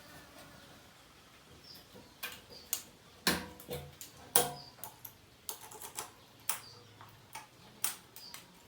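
Irregular clicks and knocks of hand tools and metal parts being handled during engine work, with two louder metallic clinks a few seconds in, the second ringing briefly.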